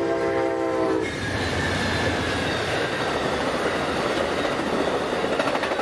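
A train horn sounding a steady chord that stops about a second in, then an Amtrak Superliner passenger train passing a grade crossing at speed, its wheels on the rail making a loud, steady noise.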